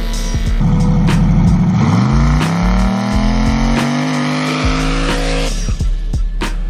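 Turbocharged LS V8 in a lowered pickup truck doing a burnout: the rear tyres spin and smoke in place while the engine holds steady, then from about two seconds in its revs rise steadily for nearly four seconds before cutting off sharply.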